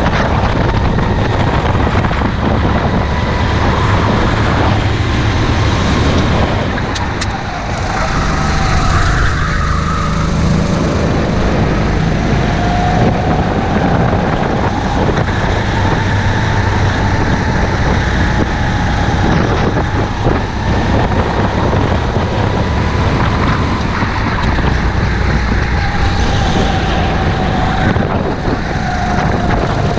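Go-kart engine heard from the driver's seat, running hard around the track. Its pitch dips as the driver lifts off for corners and climbs again on the throttle, several times, with a short dip in loudness about seven seconds in.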